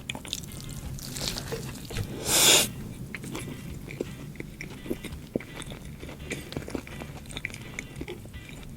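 Close-miked chewing of a burger with sambal petai (stink beans), with many small wet mouth clicks. About two seconds in there is a loud hissing burst lasting about half a second.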